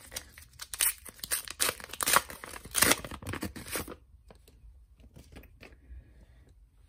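Trading-card pack wrapper being torn open and crinkled as the cards are pulled out: dense crackling and ripping for about four seconds. After that only faint clicks as the stack of cards is handled.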